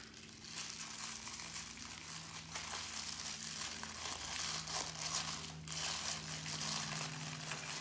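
Tissue paper crinkling and rustling as a small wrapped bundle is unfolded by hand, an irregular, continuous crackle.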